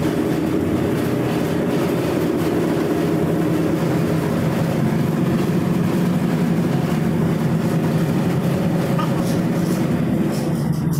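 Harbour tug's diesel engines running steadily under load, heard from inside the wheelhouse as a loud, even drone while the tug pushes its bow against a container ship's hull.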